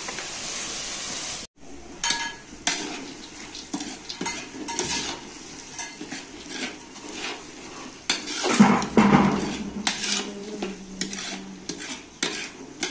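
A metal spatula stirs and scrapes the fried onion, tomato, chilli and peanut masala for poha around a large aluminium kadhai: repeated irregular scrapes and clinks of metal on metal over light sizzling. Before that there is a steady hiss that cuts off abruptly about a second and a half in.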